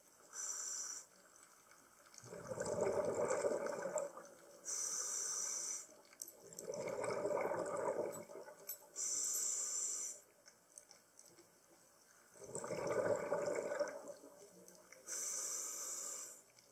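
Scuba diver breathing through a regulator underwater: short hissing inhales, each followed by a longer, louder rush of exhaled bubbles, three full breaths with a fourth inhale near the end.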